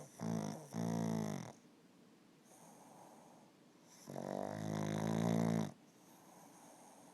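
Pug–Boston Terrier mix dog snoring in its sleep: a pitched snore in two short pieces near the start, a faint breath between, then a longer, louder snore about four seconds in.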